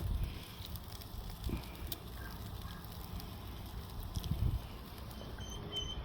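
Chicken sizzling over charcoal on a kettle grill, a steady faint hiss with scattered sharp crackles, and a couple of soft low bumps.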